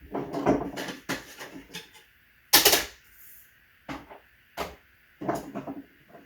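A run of separate clicks and knocks from hard objects being handled, with one much louder knock about two and a half seconds in.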